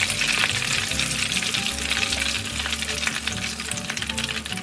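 Chicken pieces deep-frying in hot oil in a wok: a steady sizzle with dense fine crackling.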